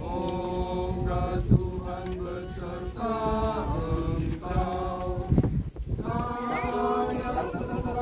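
Group of mourners singing an Indonesian hymn unaccompanied, in slow, long-held notes, with two dull thumps about a second and a half in and near the middle.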